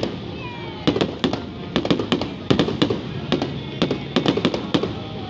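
Aerial fireworks going off: repeated sharp bangs and crackles in quick clusters about every second, with a faint falling whistle about half a second in.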